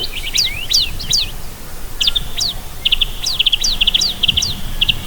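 Many small birds chirping and twittering together: quick, high downward-sweeping chirps overlapping one another, with runs of rapid trills in the second half.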